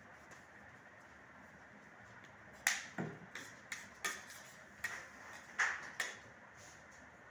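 A string of about eight sharp clicks and knocks over some three seconds, starting a little under three seconds in, from eating by hand off a steel plate resting on a bed tray.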